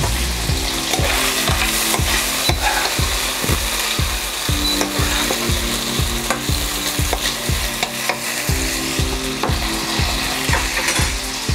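Beef strips sizzling and frying in a hot wok while a spoon stirs them, with occasional clicks of the spoon against the pan.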